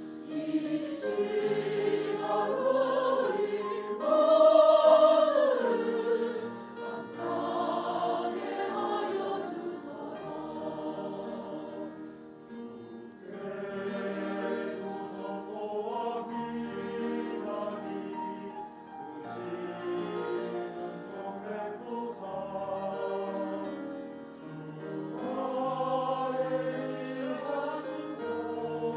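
Church choir singing a hymn in several voice parts, in long held notes, swelling loudest about five seconds in.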